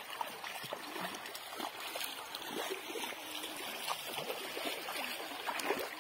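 Shallow river water flowing steadily, with light splashing from feet wading through it.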